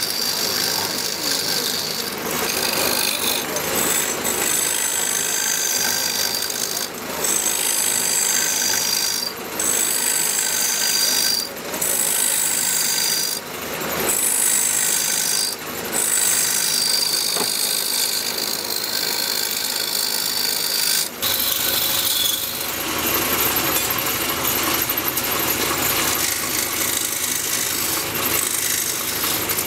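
Wooden plate blank spinning on a wood lathe while a hand-held metal turning tool cuts into it, a continuous rasping scrape of wood shavings coming off, with a thin high whistle over it. The cut breaks off briefly about every two seconds as the tool is eased off, then runs on steadily after about twenty seconds.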